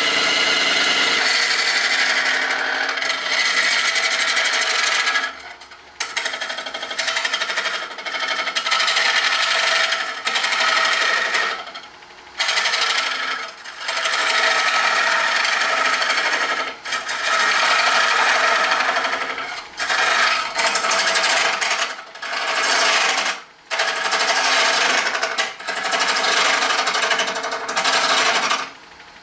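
Lathe turning tool cutting a spinning resin-and-wood hybrid orb: a loud scraping hiss in passes of one to three seconds, broken by about ten short gaps.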